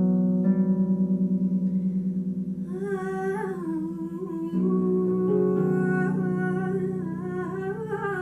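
Harp music: plucked notes ringing on in the low and middle range, joined about three seconds in by a voice humming a slow, wavering melody over them.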